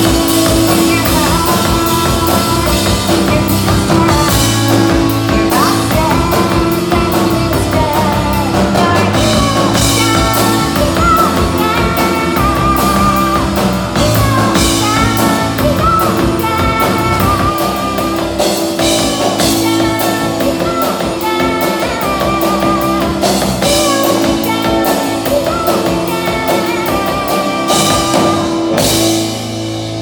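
Live rock band playing on stage: drum kit, electric bass and keyboards, with a wavering melody line over a steady beat. Near the end the drums stop and a held low chord rings on.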